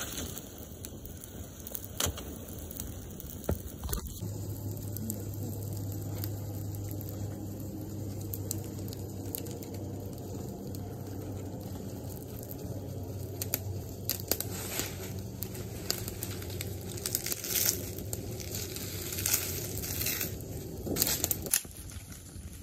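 An open fire of dry palm fronds and sticks crackling and snapping, with the crackle growing denser in the last several seconds. A steady low hum starts about four seconds in and stops shortly before the end.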